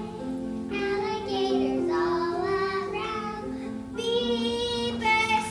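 A young child singing over a steady instrumental accompaniment, with a short break in the singing about four seconds in.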